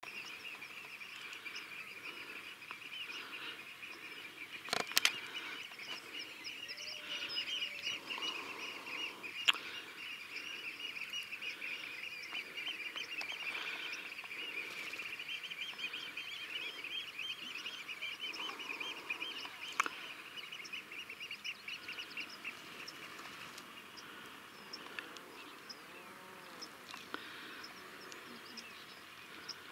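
Seabird colony: a dense chorus of many birds calling at once, a steady fast chatter that eases off near the end, with a few lower calls. Three sharp clicks at about 5, 9 and 20 seconds are the loudest sounds.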